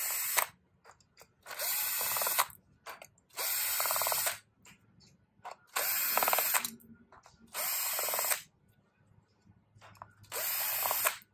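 Cordless drill-driver running in short bursts of about a second each, six times about two seconds apart, backing out the screws that hold the cover on an electric scooter's hub motor.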